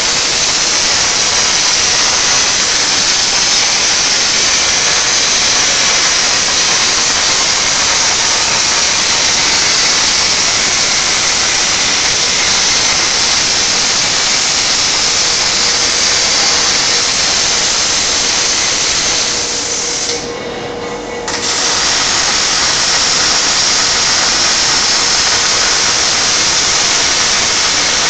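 Panasonic robotic welder's arc sizzling steadily as it welds a steel part, throwing spatter. The high sizzle drops away for about a second and a half about twenty seconds in, then resumes.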